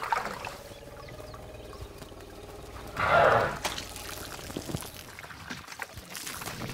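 Elephants digging into dry sand with feet and trunks: gritty scraping with sand trickling and pouring back. About three seconds in comes a short, loud rush of sand.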